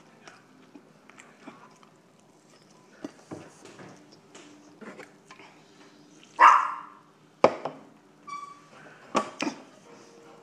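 Close-up eating sounds: bites and chewing of a stacked slider burger, with a drink from a can. Scattered small clicks and rustles, a loud short sound about six and a half seconds in, and a few sharp knocks near the end.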